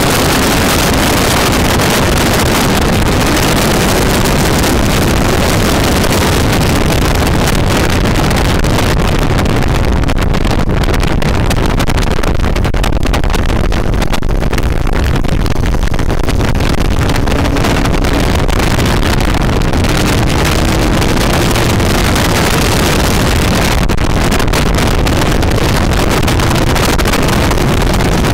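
Sport motorcycle at speed, with heavy wind rushing over the microphone and the engine running beneath it. The wind eases for a few seconds in the middle as the bike slows through a corner. Over the last ten seconds the engine note climbs steadily in pitch as the bike accelerates.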